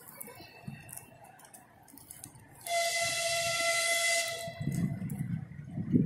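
A horn sounds one steady blast with a hiss for about two seconds, starting suddenly a little under halfway through, then fades into a low rumbling noise.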